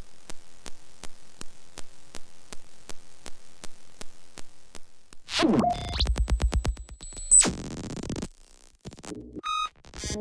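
Synthesized glitch and signal-interference sound effects. First comes an even ticking of digital clicks, about three a second, over a faint hum. About halfway through, a falling sweep leads into a rapid stuttering buzz with a high whine, and near the end short stuttering electronic beeps follow.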